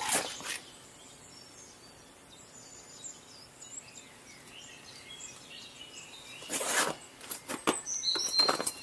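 Boots and a trekking pole's tip knocking and scraping on ice and rock as a hiker steps down: a few sharp knocks at the start, then a quiet stretch with faint bird chirps, then a quick run of steps and pole strikes from about six and a half seconds in.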